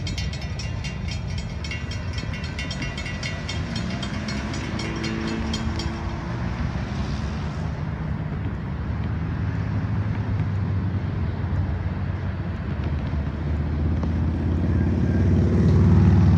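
Railroad grade-crossing bell ringing in rapid, evenly repeated strokes as the crossing gates rise, stopping about six seconds in. Under it and after it, a steady low vehicle rumble grows louder toward the end.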